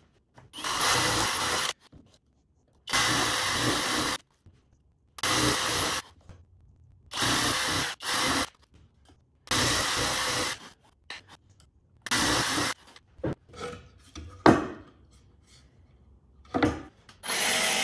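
Drill in a handheld drill-press guide boring holes through plywood: six runs of about a second each, with short pauses between, as each dog hole is cut. Then light handling clatter with one sharp knock, and the drill starts again near the end.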